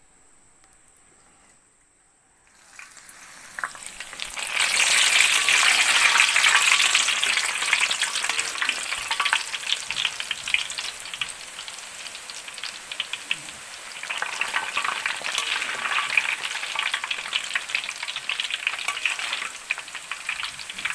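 Pieces of seaweed snack deep-frying in hot oil, sizzling and crackling. The sizzle starts about three seconds in, is loudest soon after, eases off, then swells again later on.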